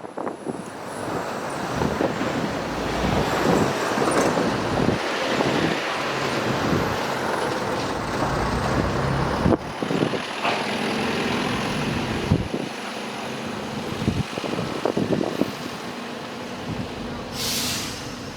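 Street traffic: a heavy vehicle such as a bus or truck running in the street, with a short sharp hiss like an air-brake release near the end.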